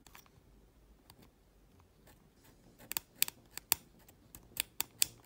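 A craft-knife blade scraping tarnish off the metal pins of a small plastic electronic component, heard as a quick run of short, sharp scrapes from about halfway, roughly three a second.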